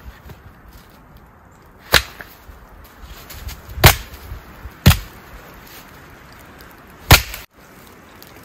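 Wood being chopped: four sharp strikes, irregularly spaced, the last coming about two seconds after the third.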